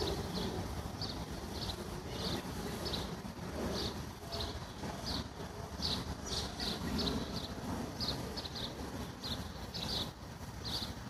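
A small bird chirping over and over, short high chirps coming irregularly about twice a second, over a low background rumble.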